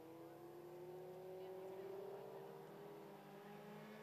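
Faint motorcycle-engined Lightning Sprint cars running at caution pace. One engine's pitch rises slowly over the first two seconds, then holds steady.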